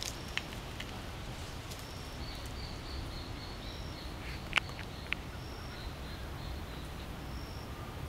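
Quiet outdoor background: a low rumble with faint, high, thin whistling notes repeating from about two seconds in. A sharp click comes about four and a half seconds in, with a smaller one just after.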